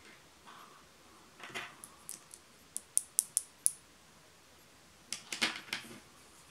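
Handling of a fabric-braided 3.5 mm AUX cable with metal plugs: rustling of the braided cord, then a quick run of about five sharp, high metallic clicks from the metal plugs about three seconds in, and another rustle near the end as the cable is laid on the table.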